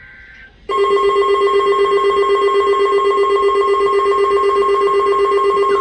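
A faint high electronic buzz, then about two-thirds of a second in a loud emergency-alert tone cuts in suddenly: a steady electronic alarm tone of several pitches with a fast, even flutter, like a ringing phone.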